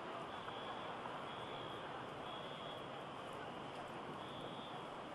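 Busy city street ambience: a steady wash of traffic and crowd noise, with a faint high beep repeating about once a second.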